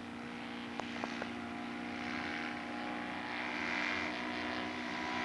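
Engine of a 1/3-scale Nieuport 17 radio-controlled model airplane running at a steady pitch and growing gradually louder, with a few faint clicks about a second in.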